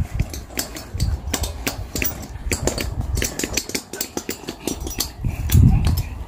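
Wheels of a pushchair and a wire trolley cart rolling over a rough grass and dirt path: a low rumble with irregular rattling clicks, the rumble strongest about five seconds in.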